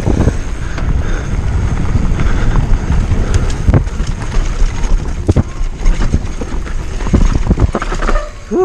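Downhill mountain bike descending a dirt trail at speed: wind buffeting the camera microphone and the tyres rumbling over dirt, with the bike rattling and knocking sharply over bumps several times. A short rising squeal comes just before the end.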